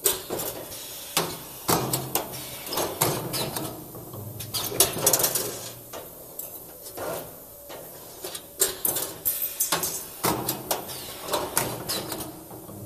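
Automatic wire bending and welding machine working: repeated bursts of sharp metallic clicks and clacks from its moving parts, some with a low hum under them.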